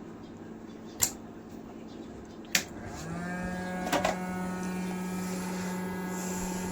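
Two sharp clicks, then a hot air rework blower switches on about halfway through and runs with a steady pitched hum.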